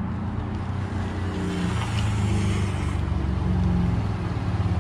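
Chevrolet Colorado pickup's engine running steadily.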